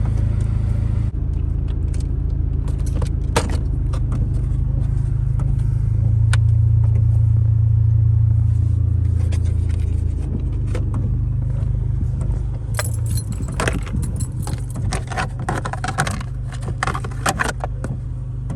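Plastic steering-column trim covers of a 1990s Honda Civic being pried and pulled off, with scattered clicks and then a quick run of clicking and rattling in the last few seconds, over a steady low rumble.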